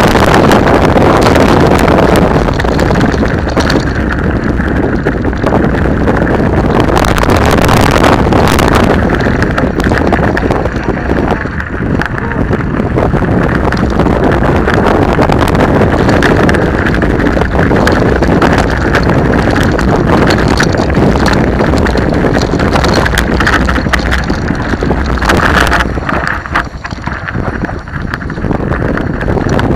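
Wind buffeting the microphone of a bike-mounted action camera, mixed with the rattle and crunch of mountain bikes rolling down a rough dirt-and-gravel trail. Loud and steady, easing briefly near the end.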